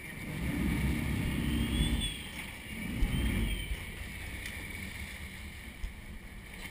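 Sportfishing boat running with water churning along the hull, swelling twice in low, muffled rumbles before settling to a steady wash.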